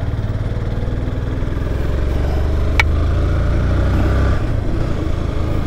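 Motorcycle engine running steadily while being ridden, with a single sharp click about halfway through.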